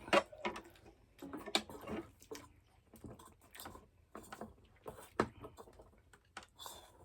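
Eating at a table: irregular small clicks and crunches of chewing and of utensils against dishes, a few louder knocks among them.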